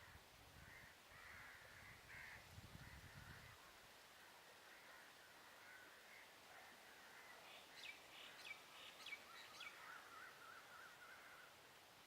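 Birds calling across open water, faint. A run of about six short, harsh calls comes around eight to nine and a half seconds in, followed by a rapid warbling trill. A low rumble sits under the first few seconds.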